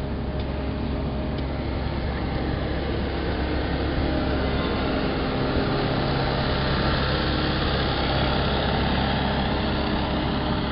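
Steady low rumble of a running vehicle or engine with a hum, growing a little louder, then cut off suddenly at the end.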